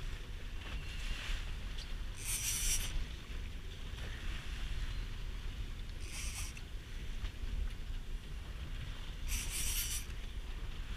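Steady wind rumble on the microphone aboard a small boat at sea. Three short bursts of high hiss come about two, six and nine seconds in.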